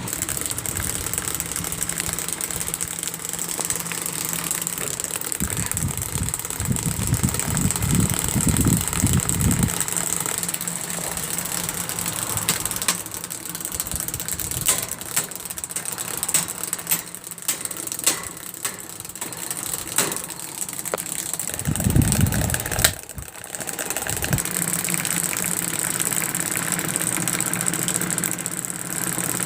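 Old Panasonic electric table fan running with a steady hum and a thin high whine. Through the middle there are scattered knocks and rattling clicks, and twice a low rumbling gust.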